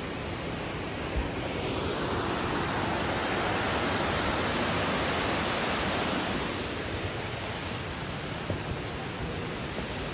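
A waterfall's rushing water, a steady hiss. It grows louder for a few seconds in the middle, then eases again.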